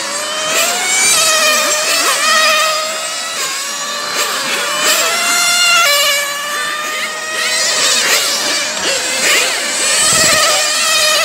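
Several 1/8-scale electric RC on-road race cars lapping the track together, their brushless motors whining. The overlapping whines rise and fall in pitch as the cars accelerate down the straights and brake into the corners.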